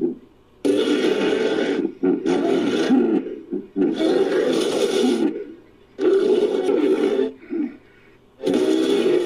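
Designed creature sound effect built from hippopotamus calls: four rough, wavering animal calls in a row, each about a second or more long with short pauses between them.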